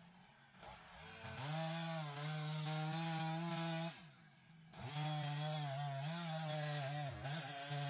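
Two-stroke chainsaw revved up to full throttle about a second in, dropping back to idle for under a second near the middle, then revved up again. Its pitch wavers slightly while held high.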